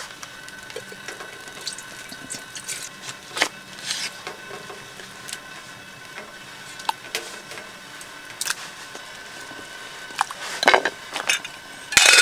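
Knife work on a wooden board: a blade pushed into a drink carton, then slicing through an orange and lemons, with scattered small knocks and scrapes. Near the end come a few louder clanks of a metal camping kettle and its wire handle.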